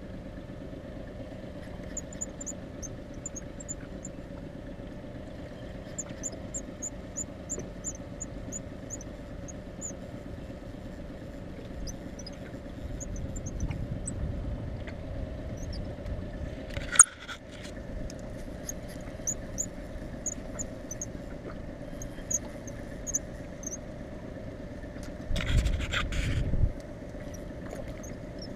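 Small fishing boat's outboard motor idling steadily, with rows of short high ticks over it, a sharp click partway through, and a louder burst of noise near the end.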